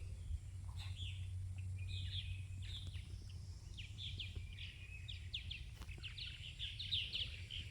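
Small birds chirping: many short, quick, falling chirps that come thicker and faster in the second half, over a steady low rumble.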